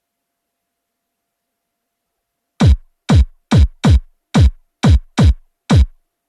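Elektron Digitakt II sampler playing eight short drum hits in an uneven rhythm, each a low hit that drops quickly in pitch, starting about two and a half seconds in after silence.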